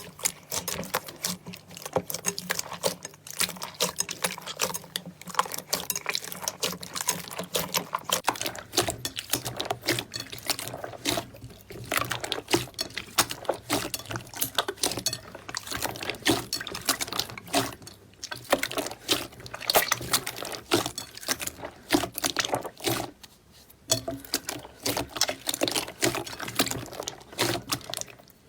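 Slime being squeezed, pressed and stretched by hand: wet squishing with a dense stream of small sticky pops and clicks.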